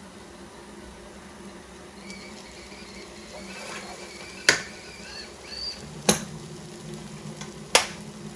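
A thick berbere, onion and tomato-paste mixture frying in a pot. A wooden spoon knocks sharply against the pot three times, about a second and a half apart, over a steady low hum.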